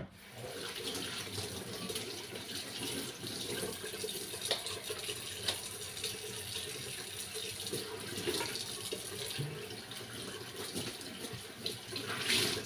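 Kitchen tap running into a stainless-steel sink as gloved hands are rinsed under the stream, a steady splashing hiss with a few light knocks; it grows louder near the end.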